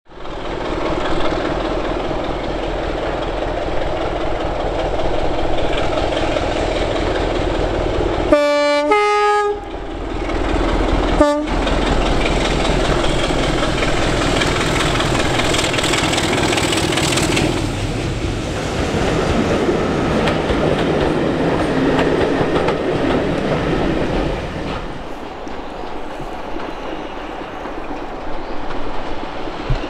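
A BR Class 33 diesel locomotive hauling a train, its engine running under power, sounds its two-tone horn about eight seconds in, a lower note then a higher one, and gives a short low blast about three seconds later. Near the end a green Class 25 diesel is heard approaching with its train, quieter.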